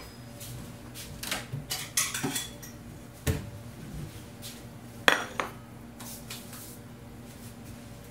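Kitchen dishes and cutlery clinking and clattering in a string of short knocks as a white plate is taken out and handled. The plate is set down on the countertop with the loudest clack about five seconds in, then a few lighter knocks. A low steady hum runs beneath.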